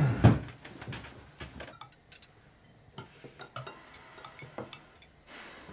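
Cutlery clinking against plates at a meal table: scattered light clicks and taps, with a heavy knock at the very start.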